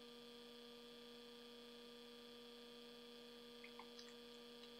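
Near silence: room tone with a faint steady electrical hum, and a few tiny ticks about three and a half seconds in.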